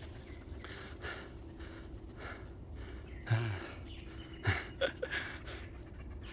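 Heavy panting breaths after running, with a short low grunt about three seconds in and a sharp knock a second later.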